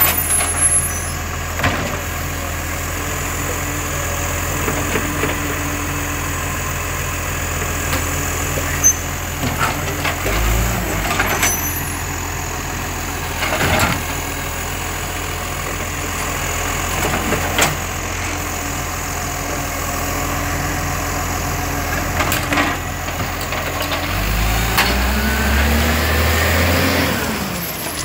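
Side-loading garbage truck's engine running steadily while its hydraulic arm empties a wheelie bin, with scattered sharp clanks and knocks as the bin is gripped, tipped and set down. The engine revs up near the end as the truck pulls away.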